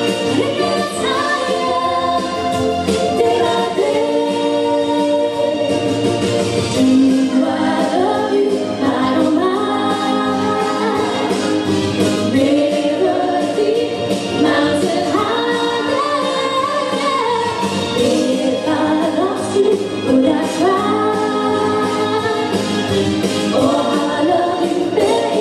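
Female vocal trio singing a Motown song in harmony over backing music.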